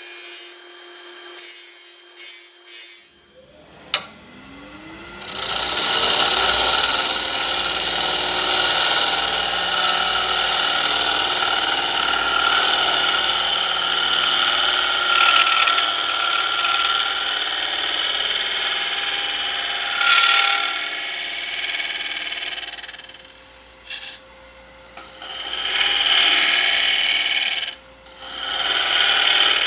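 Gouge cutting into a spinning burl-and-epoxy-resin bowl blank on a wood lathe: a steady hissing scrape as ribbons of shavings come off. Short scrapes at first, a rising whine about four seconds in, then one long continuous cut that breaks off briefly twice near the end as the tool lifts away.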